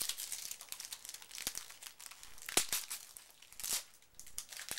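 Foil booster-pack wrapper crinkling and tearing as it is pulled open by hand: a run of dry crackles, the sharpest about halfway through.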